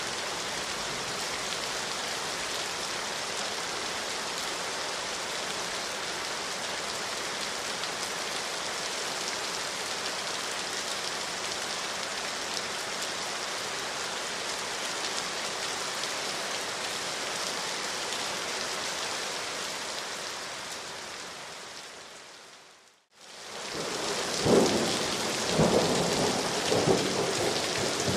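Steady rainfall, an even hiss of falling rain. Late on, the sound fades out to silence and fades back in, and the rain returns with a few loud low thumps over a few seconds.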